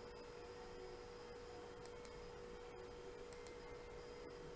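Faint steady hum at one middle pitch over a low hiss.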